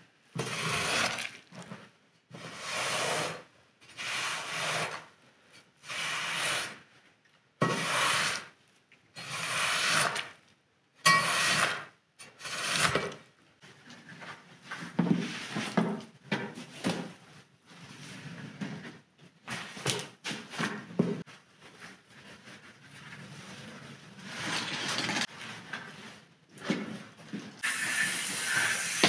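Long-handled scrubber pushed in repeated swishing strokes over a soaked, soapy rug, about one stroke every second and a half. After that come irregular wet slaps and rustling as the soaked rug is lifted and peeled off the floor. A steady hiss starts near the end.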